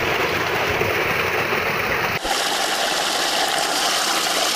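Water gushing from a pipe outlet into a concrete tank, a steady rushing noise. About two seconds in, it changes abruptly to a brighter, hissier rush.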